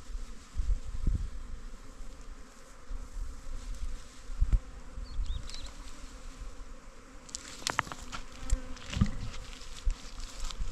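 Honeybees buzzing around an open hive, with irregular low thumps. From about seven seconds in, sharp crackling and snapping as a leafy branch is broken off a shrub.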